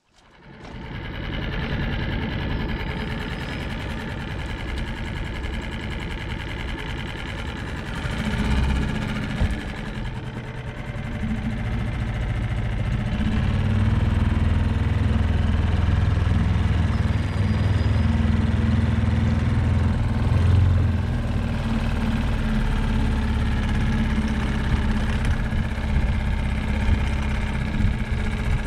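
Side-by-side UTV engine running steadily while driving, working harder about eight seconds in and again a few seconds later.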